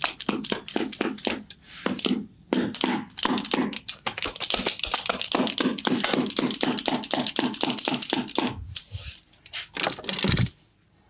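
Rapid percussive hand massage: hands slapping on the body at about six strikes a second. The run breaks off briefly about two seconds in and stops about eight and a half seconds in, followed by a few scattered strikes and one heavier thump near the end.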